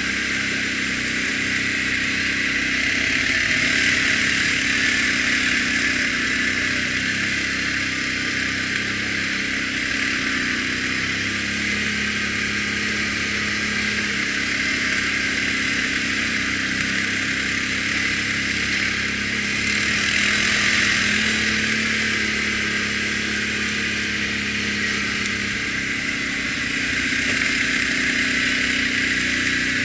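ATV engine running steadily at trail speed, with a steady hiss over it. The engine swells a little twice, about four seconds in and again near twenty seconds.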